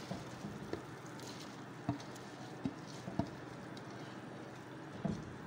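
Soaked rice poured into a pot of boiling meat stock: a steady faint bubbling hiss, with a few short soft knocks of the colander and grains against the pot.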